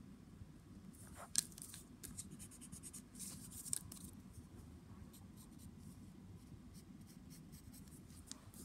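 Graphite pencil scratching on paper in short, irregular sketching strokes, with a sharper tick about a second and a half in.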